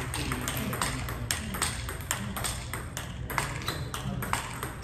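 Table tennis rally: the ball clicking in quick succession off the paddles and the table, about three to four sharp hits a second.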